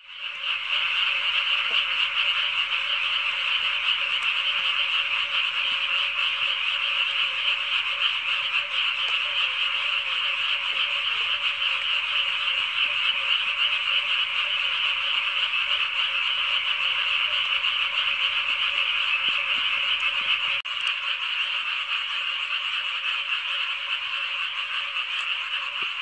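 Loud, unbroken chorus of many frogs calling at once, a dense din of overlapping croaks.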